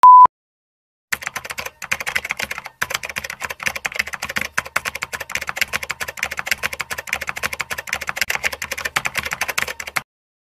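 A brief steady beep, then after a second's pause a rapid, irregular run of keyboard typing clicks lasting about nine seconds, a typing sound effect for on-screen text that appears letter by letter; it stops abruptly about ten seconds in.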